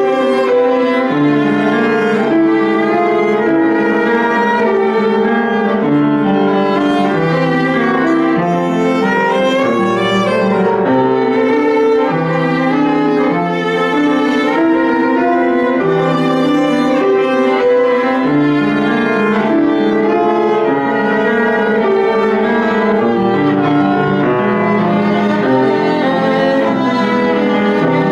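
Violin played with piano accompaniment: a continuous melodic line of quickly changing notes over sustained lower piano notes, a student recital performance of classical repertoire.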